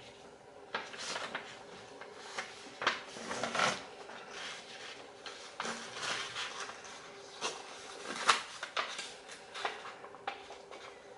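A sheet of origami paper rustling and crinkling as hands fold it and press the creases, in irregular crackles and short scrapes.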